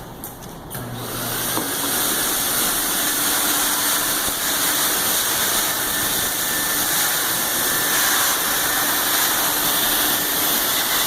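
Tennant V-WD-15 commercial wet/dry vacuum motor spinning up over the first couple of seconds, then running steadily with a loud rush of air.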